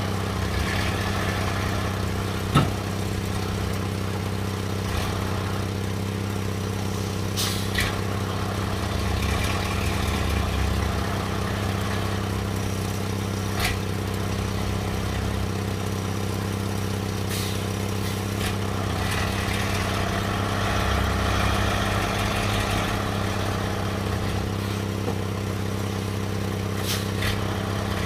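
An engine running steadily under even load, with a few sharp knocks and some clatter over it.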